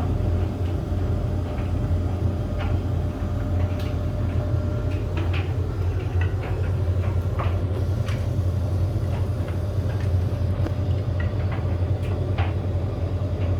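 Bosch Maxx7 tumble dryer running: a steady low motor hum with scattered light knocks throughout.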